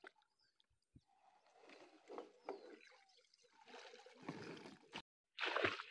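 Faint water splashing and dripping around a small wooden boat, with a few light knocks, a little louder near the end.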